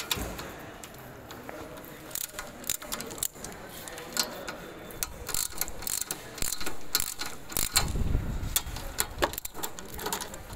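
A ring spanner working the nuts off a weeder's aluminium housing: irregular metal clicks and clinks as the spanner turns and meets the nut heads, with some dull handling thumps about eight seconds in.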